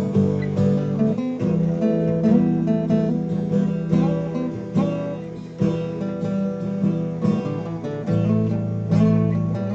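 Guitar being played: a steady run of plucked notes and strummed chords, each with a sharp attack.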